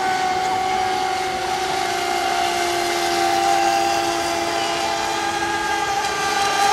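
Radio-controlled racing boat's motor running flat out, a steady high-pitched whine whose pitch sags slightly midway and recovers.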